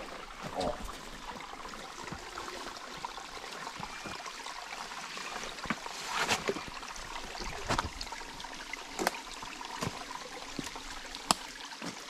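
Creek water trickling over rock, with scattered scuffs and sharp knocks of shoes and hands on the wet rock face as someone climbs down it.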